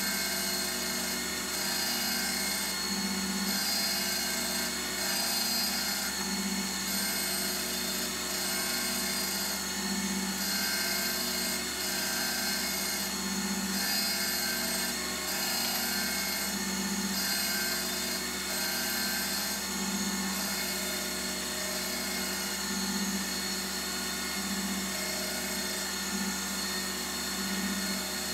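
LIP 515 surface grinder with its wheel grinding the workpiece on the magnetic chuck. A steady whine runs under a grinding hiss that swells and fades about every three and a half seconds as the table traverses back and forth under the wheel.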